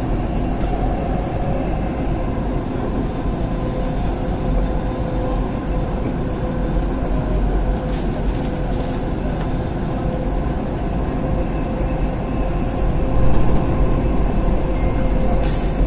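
Dubai Metro Red Line train running at speed, heard from inside the carriage: a steady rumble with a constant hum, and a few brief higher hisses.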